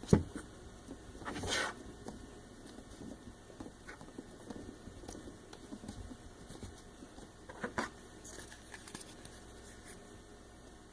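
Hands working Play-Doh with small plastic stamps and molds on a tabletop: soft irregular patting and pressing, with a sharp plastic knock at the start, a brief rustle a second or so later, and another click near the end.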